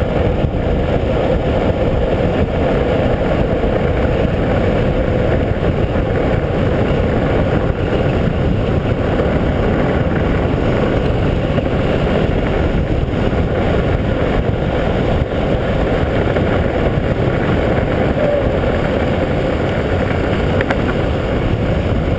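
Longboards running fast downhill: a steady rumble of the wheels rolling on asphalt mixed with wind noise on the microphone, even throughout.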